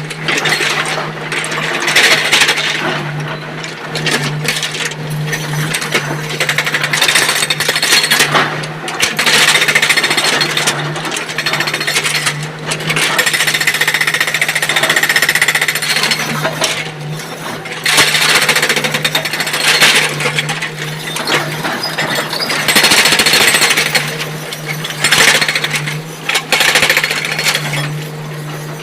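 SANY hydraulic excavator working, its engine holding a steady hum under repeated harsh rattling and clanking bursts of heavy machine work.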